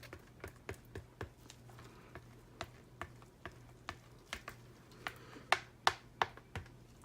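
Spatula scraping down a container of soap batter, knocking against its sides in a string of irregular sharp clicks and taps, the loudest few a little past halfway.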